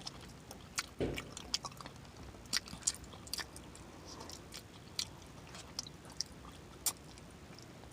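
Close-up mouth sounds of someone eating jerk chicken, chewing and smacking the lips as the meat is stripped from the bone. Irregular wet clicks and smacks come every half second or so, with a duller thump about a second in.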